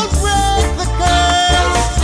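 Reggae song: a male tenor voice sings a held note over a heavy, pulsing bass line.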